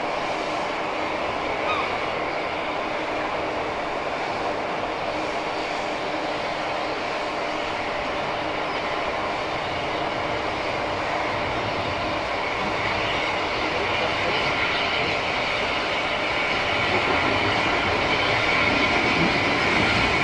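Bagnall saddle tank steam locomotive drawing its train of coaches slowly along the track towards the listener, its sound growing steadily louder as it approaches.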